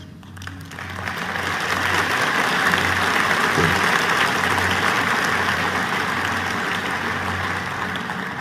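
Audience applauding, building over the first couple of seconds, then slowly dying away.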